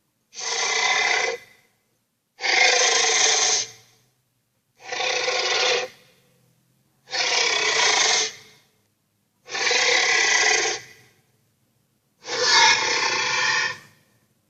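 Six raspy, hissing roars of a cartoon sea-serpent creature sound effect, each about a second long, with a short silence between them.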